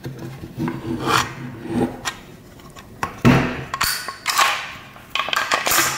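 Steel bolt of a Sten Mk2 submachine gun being worked back and out of its tubular receiver: a series of metal-on-metal scrapes and rubs, louder and closer together in the second half.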